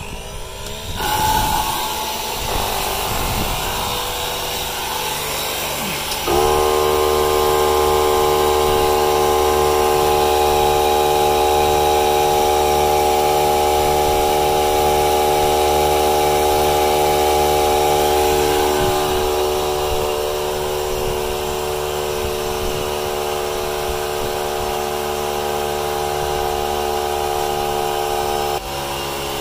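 Cordless tire inflators and a Ryobi 18V cordless air compressor running together, pumping tires up toward 45 PSI: a steady motor-and-pump drone, joined about six seconds in by a louder, higher whine that cuts off shortly before the end.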